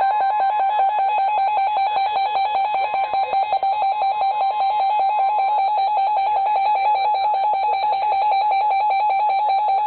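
Weather radio alert alarm: a loud, rapidly warbling electronic tone announcing a severe thunderstorm warning. A fainter steady tone, typical of NOAA Weather Radio's 1050 Hz warning alarm, runs beneath it and stops about halfway through. The warble cuts off abruptly at the end.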